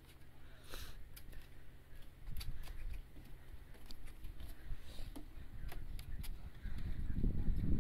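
Scattered light clicks of dog claws on wooden dock boards over a low rumble, which swells louder near the end.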